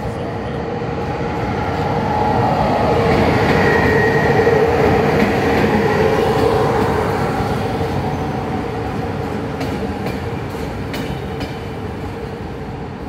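Passenger train pulling in along a station platform: the rumble of the locomotive and carriages builds to its loudest a few seconds in, with a steady whine over it, then slowly eases off.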